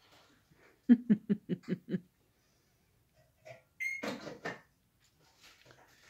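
A person laughing in a quick run of about six short bursts, about a second in. Just before four seconds a budgie gives a brief high chirp, followed by a short scratchy burst of sound.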